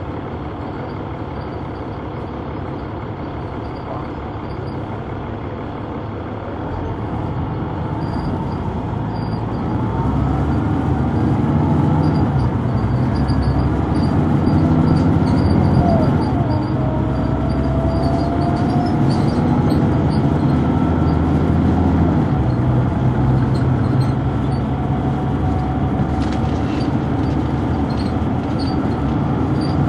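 Neoplan AN459 articulated city bus with a Caterpillar C9 diesel engine and ZF Ecomat automatic transmission, heard from on board while it runs. It grows louder from about seven seconds in, and a whine rises in pitch about halfway through.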